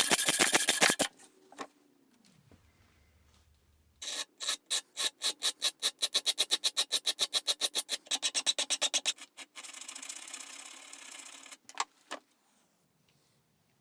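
Hand filing with quick, even back-and-forth strokes, about seven a second, in bursts with a pause between them, ending with a steadier scrape and a couple of clicks.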